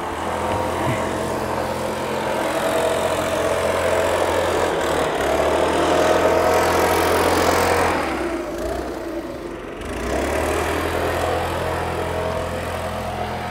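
Small motorbike engine running steadily while riding, with a rushing noise over it. About eight seconds in the engine note drops and the sound eases off for a moment, then picks up again.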